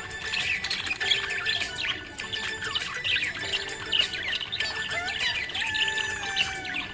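Budgerigar chirping and warbling: a dense run of quick, high chirps and short pitch glides with no break.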